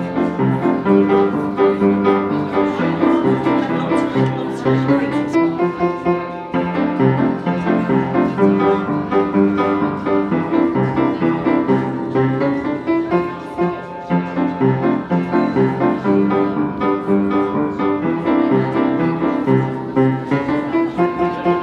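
Piano music: a piano playing a steady, rhythmic piece of chords and melody.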